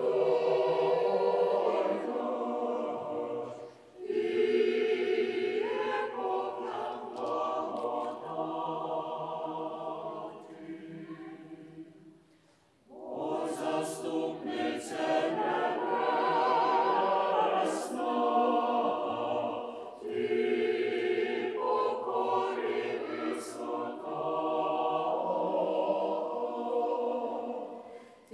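A choir singing in long phrases of several seconds, with brief pauses between them.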